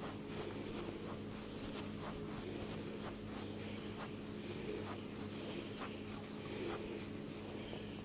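Hands rubbing and scratching through hair and over skin in a head massage: a dense, irregular run of quick, soft scratchy strokes over a steady low electrical hum.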